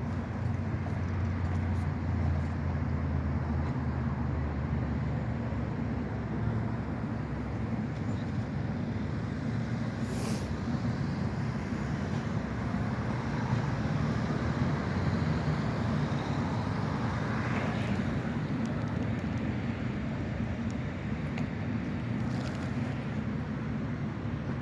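Tram running slowly into a turnaround loop with a steady low rumble, and brief high-pitched squeals from the wheels about ten seconds in and twice more later.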